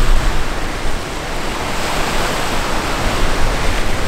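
Strong snowstorm wind blowing hard, buffeting the microphone with heavy low gusts in the first second, then a steady rush.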